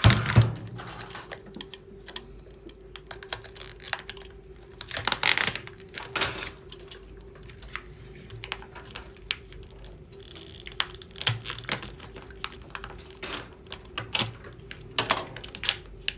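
Hands opening a shrink-wrapped filament spool box: scattered clicks and taps of cardboard and plastic, with a louder knock at the start and stretches of plastic wrap rustling about five seconds in and near the end. A faint steady hum runs underneath.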